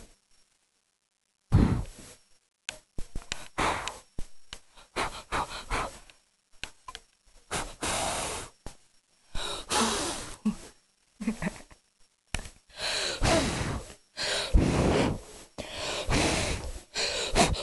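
A person blowing repeated puffs of air onto a Shih Tzu's fur close to the microphone: a string of breathy gusts, each under a second or so, with short gaps between, starting about a second and a half in.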